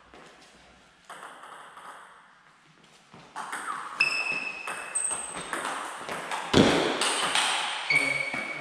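Table tennis rally: the ball clicking sharply back and forth off the bats and the table, about three hits a second starting a few seconds in, some hits leaving a short ringing tone. A heavy thud sounds about two-thirds of the way through.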